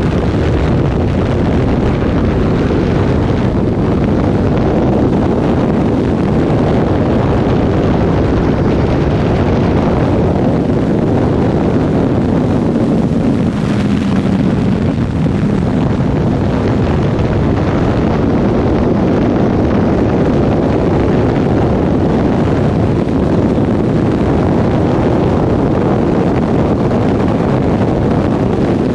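Sport motorcycle cruising at highway speed: heavy wind rushing over the microphone on top of the engine's steady drone, its pitch dipping slightly partway through.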